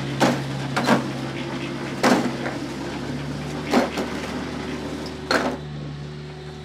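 Volvo wheeled compact excavator's diesel engine running steadily, with about five sharp knocks and clanks, some seconds apart, as the bucket works against a crumbling brick wall.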